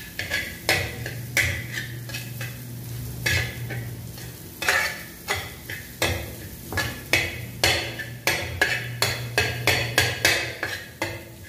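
Metal spatula scraping and tapping against a frying pan in quick, irregular strokes as mashed spiced potato is stirred and fried in oil, over a light sizzle and a low steady hum.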